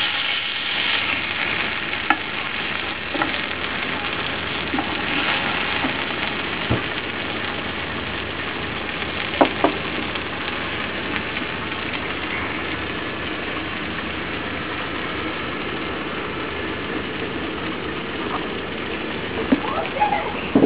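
Chops in sauce frying in a pan: a steady sizzle, with a few sharp pops scattered through it.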